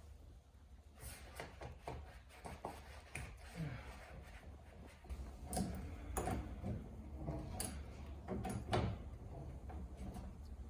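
Scattered knocks, clicks and scraping from hands-on air-conditioner installation work, with the loudest knock about nine seconds in, over a steady low hum.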